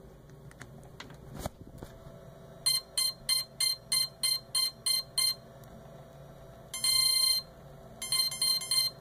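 Cheerson CX-20 quadcopter powering up after its battery is plugged in: a thump, then about nine short evenly spaced beeps, one longer beep, and a quick run of about five more beeps, all at the same pitch, as the drone runs its power-up sequence.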